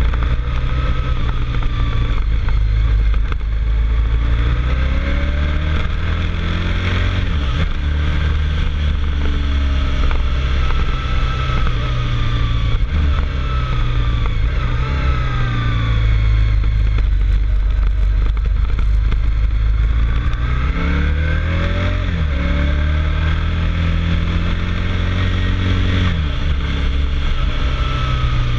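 Motorcycle engine pulling hard up a mountain climb. The revs repeatedly rise and then drop sharply, as at gear changes and bends. Heavy wind rumble is on the onboard microphone.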